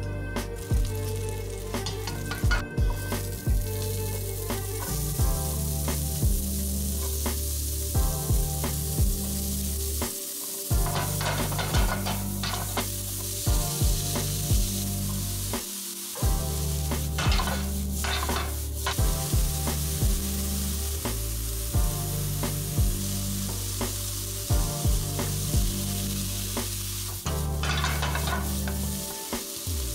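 Diced vegetables sizzling in butter and oil in a frying pan, stirred and scraped now and then. Background music with a steady beat plays underneath.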